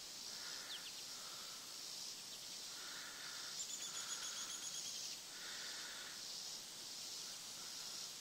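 Faint insect chorus in a grassy field: a steady high chirring with repeating pulsed calls about once a second, and a brief fast ticking trill a few seconds in.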